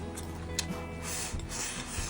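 Background music with a steady bass line, with brief rubbing or scraping noises over it and a single sharp click about half a second in.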